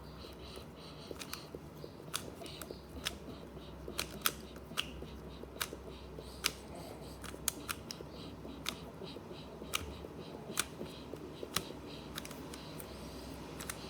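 A puzzle cube being turned rapidly during a timed solve: irregular sharp plastic clicks, several a second, as its layers are twisted.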